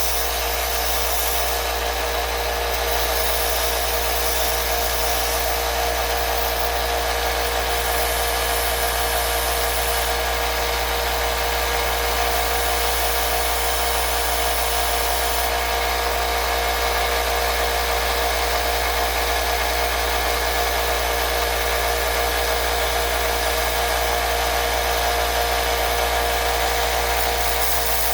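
Electric motor running steadily with a constant hum and whine, its high hiss shifting slightly a few times.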